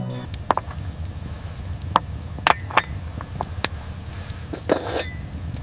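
A steady low rumble with about eight sharp, irregular clicks and knocks scattered through it.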